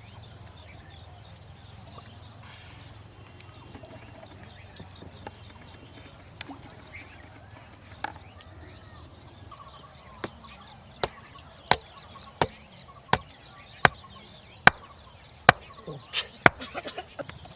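A run of sharp, evenly spaced chopping strikes, about one every 0.7 seconds, starting about ten seconds in and ending in a quick cluster of smaller knocks near the end.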